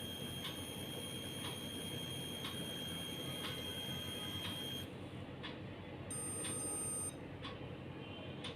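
Arterial blood gas analyzer running its analysis with a steady high electronic whine and faint ticks about once a second; the whine stops about five seconds in and the analyzer gives one beep about a second long, signalling that the result is ready.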